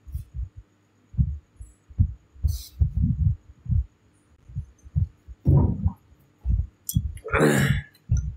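A run of low, dull thumps at irregular intervals, then a noisy slurp of hot soup sipped from a bowl, lasting under a second, near the end.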